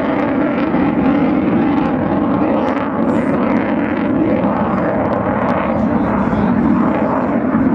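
Panavia Tornado GR4 jet flying past, its two RB199 turbofans giving a loud, steady jet noise.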